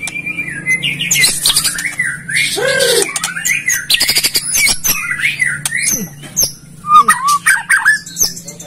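A bird calling in a rapid, varied string of chirps, squawks and quick rising and falling whistled notes, over a faint steady low hum.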